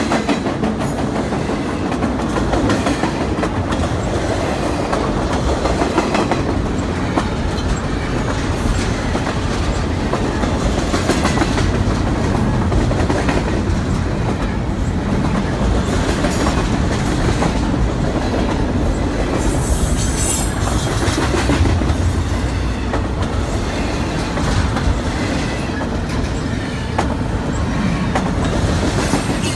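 CSX intermodal freight train's container and trailer cars passing close by at speed: a steady, loud rumble of steel wheels on rail, with repeated clicking as the wheels cross rail joints.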